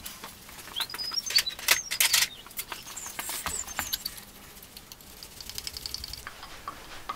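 Small metal screws and fixings clicking and scraping as a screwdriver works them into a DRO scale bracket on a metal lathe's saddle. There are a few short high squeaks about a second and three seconds in, and a run of quick light ticks near the end.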